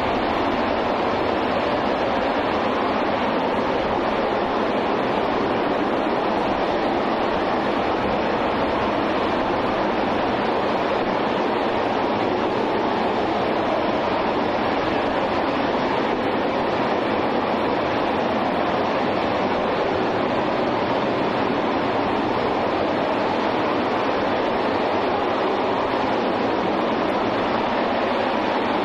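RS-25 liquid-hydrogen/liquid-oxygen rocket engine, the former Space Shuttle main engine, firing steadily on a static test stand. It makes a continuous, even rushing noise that neither rises nor falls.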